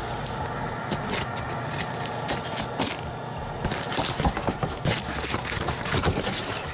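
A cardboard shipping box being opened: packing tape crackling as it is slit and pulled apart, and the cardboard flaps scraping and rustling. The crackling gets louder and busier past the middle.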